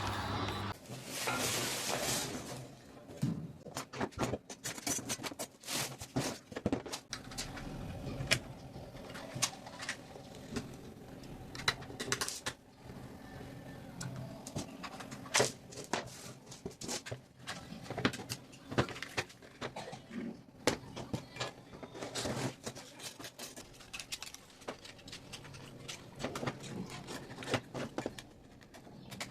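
Scattered clicks, taps and knocks of hands handling and working on a toy remote-control car's plastic parts, with a louder rustle a second or two in.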